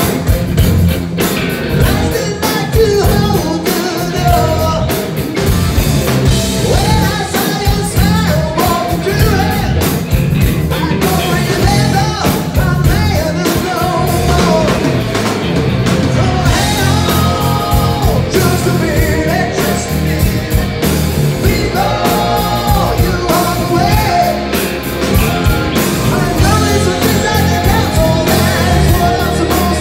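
Live rock band playing loud: male lead vocal over electric guitar, electric bass and drum kit, recorded from the crowd.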